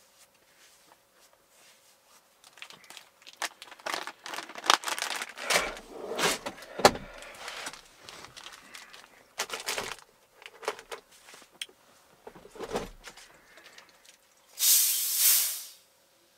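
Rummaging and clattering of small objects and packaging, then a plastic bottle of carbonated soft drink (Schweppes Russchian) being unscrewed, its gas escaping in a hiss of just over a second near the end.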